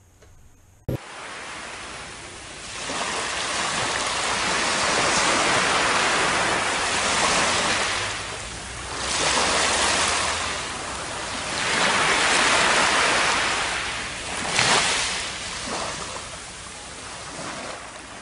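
Shallow waves washing up over wet sand and drawing back, the wash swelling and fading every few seconds. It starts abruptly with a click about a second in.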